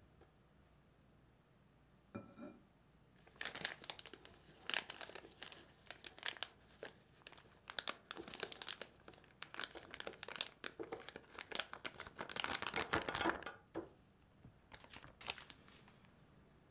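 Clear plastic disposable piping bag crinkling and rustling as it is gripped and handled, in a dense run of irregular crackles, with a brief clink about two seconds in.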